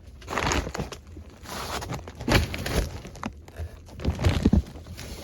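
Rustling, crinkling and scuffing as a person moves about in a crawl space, in irregular bursts with a few louder scrapes, over a low steady hum.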